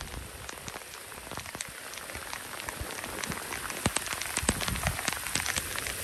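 Rain shower falling: a steady hiss with many sharp drop hits, growing denser and a little louder in the second half.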